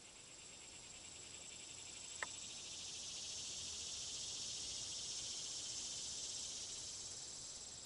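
Insects chirring outdoors in summer: a steady, high, finely pulsing drone that swells a couple of seconds in and eases off near the end. A single faint click about two seconds in.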